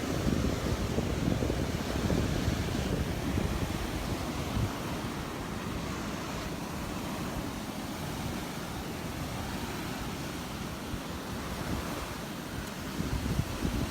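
Surf washing ashore, with wind buffeting the microphone in gusts, heaviest in the first few seconds and again near the end.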